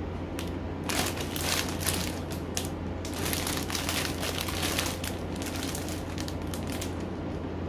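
Clear plastic packaging around a folded shirt crinkling as it is handled and turned over. The crackling starts about a second in, is busiest in the middle, and thins out near the end.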